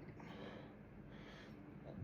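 A person breathing: two soft, hissy breaths about a second apart.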